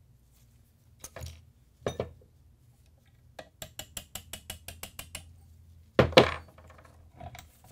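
Metal clicks and clacks from the parts of a VZ 2008 rifle being worked by hand as a retaining pin is pushed out: a couple of knocks, then a quick run of about a dozen light clicks, then one loud clack about six seconds in.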